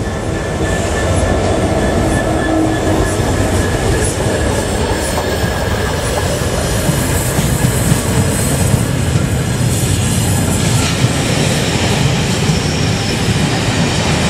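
A GBRF Class 66 diesel locomotive running as it hauls the failed A1 Pacific steam locomotive 60163 Tornado and its coaches past, loud and steady. Once the diesel has gone by, the rumble of the train's wheels on the rails carries on as the coaches roll past.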